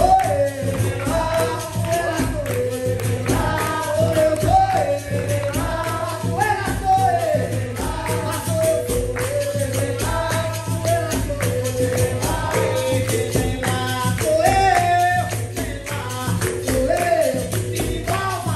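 Capoeira roda music: sung melody over pandeiro (tambourine) and percussion, with a steady rhythm.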